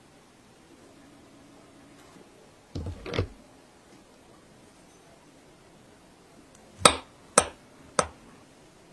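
A soft double thump about three seconds in, then three sharp clinks of a metal utensil against a ceramic plate near the end, as a mini chocolate-glazed pound cake on the plate is cut.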